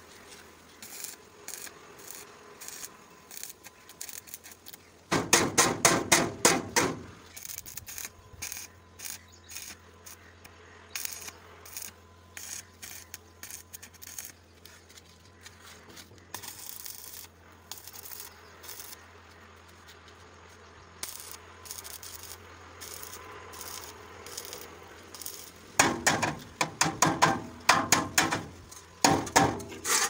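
Rapid runs of sharp metal strikes on a concrete mixer's steel drum, one burst about five seconds in and another near the end, with scattered quieter clicks and a low steady hum between.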